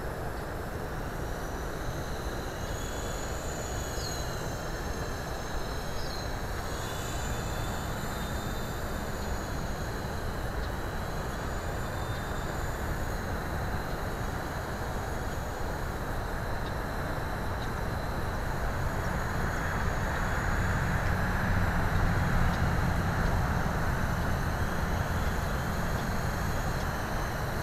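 eSky Big Lama coaxial electric RC helicopter in flight, its motors and rotors giving a thin high whine that wavers up and down in pitch over a steady low rumble of noise. It grows louder about two-thirds of the way in as it comes in close to land.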